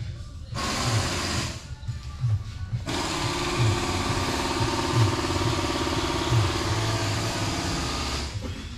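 A small motor-driven machine whirring in two runs over background music with a steady beat. The first run is short, about half a second in; the second is steady and lasts about five seconds, starting around three seconds in.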